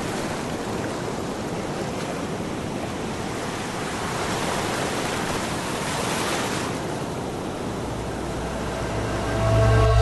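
Ocean surf washing in a steady rush of breaking waves, swelling a little midway. A low rumble builds in the last second.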